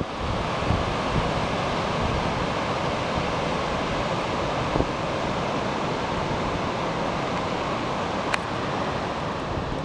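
Sea surf breaking along a pebble beach, a steady wash of noise, with wind on the microphone. A short click a little over eight seconds in.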